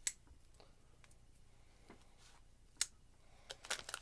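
A folding pocket knife being handled and its blade opened: a few scattered sharp clicks, with one crisp click about three seconds in and a quick run of small clicks near the end.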